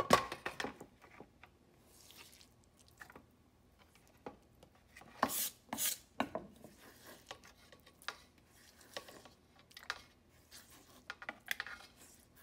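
Kitchen knife tapping and scraping on a wooden cutting board as diced mango is finely chopped and gathered: irregular knocks of the blade on the board, a quick run at the start and a few sharper ones about five and six seconds in, with softer scraping between.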